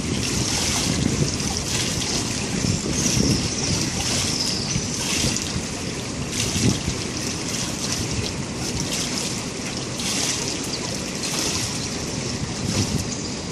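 Swimming-pool water lapping and trickling, a steady watery hiss, with wind buffeting the microphone in a low rumble.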